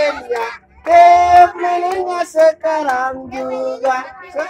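A child and a woman singing a birthday song with held, drawn-out notes.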